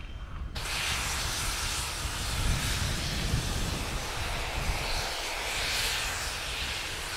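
Strasburg Rail Road No. 89, a 2-6-0 steam locomotive, approaching with a loud, steady hiss of escaping steam that starts suddenly about half a second in, over a low rumble.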